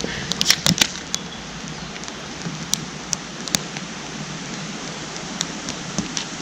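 Wood campfire crackling: sharp pops and snaps over a steady hiss, with a quick cluster of pops about half a second in.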